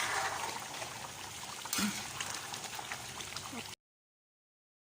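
Biryani masala with fried meat cooking in a pot, a steady bubbling hiss, with a single knock a little under two seconds in. The sound cuts off suddenly into dead silence near the end.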